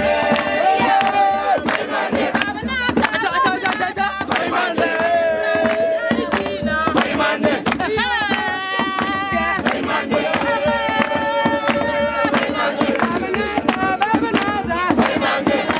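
A group of young people singing a chant together in loud unison, with sharp rhythmic beats running through it.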